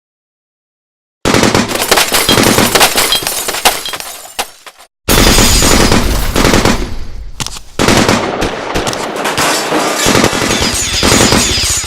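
Action-film gunfire sound effects: rapid automatic-weapon fire in dense volleys, starting after about a second of silence. A brief pause comes near the middle, then a louder volley with a deep low rumble takes over and runs on.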